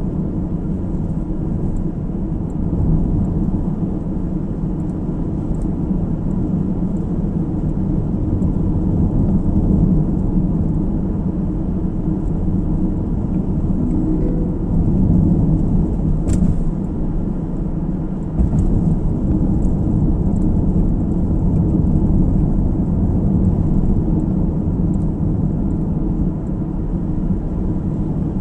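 Steady low road and engine rumble of a car driving, heard from inside the cabin, with one sharp click about sixteen seconds in.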